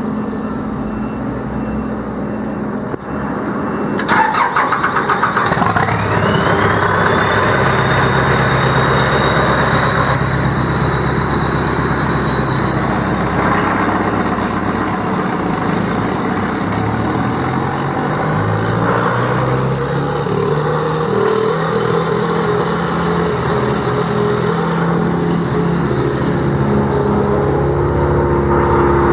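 Vermeer BC1500 wood chipper running: about four seconds in a short rattling clatter, the sound gets louder, and a whine climbs steadily in pitch over about fifteen seconds as the machine comes up to speed, over the steady engine note.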